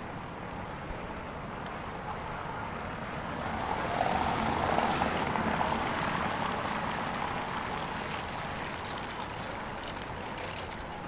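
A car driving past on the street, its sound swelling about four seconds in and fading slowly as it moves away, over a steady bed of city traffic.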